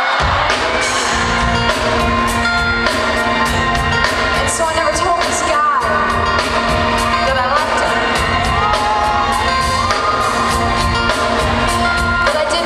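Pop song with a singer over a steady drum beat and bass, heard as a concert recording.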